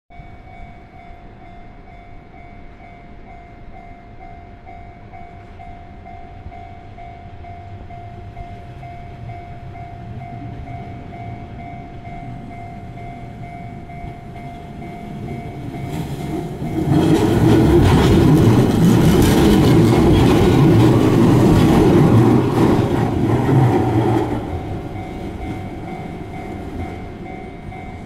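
Japanese level-crossing warning bell ringing in a steady repeating pulse. About 17 seconds in, a Keihan 600 series two-car electric train passes close by for about seven seconds, loud enough to drown the bell. The bell carries on ringing after the train has gone.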